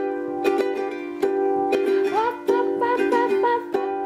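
Ukulele strummed in chords at an uneven, lively rhythm. A woman's voice sings along briefly around the middle.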